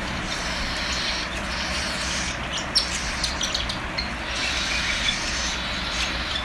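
Hungry cockatiel chicks begging for food with continuous raspy, hissing calls over a steady low hum, with a few short sharp clicks scattered through.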